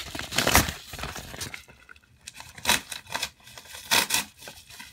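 Plastic mailer bag being torn open and crinkled by hand: irregular rustling with a few louder rips.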